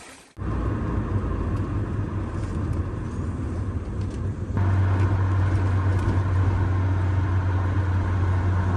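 A car running, heard as a steady low engine and road rumble. It steps louder about four and a half seconds in.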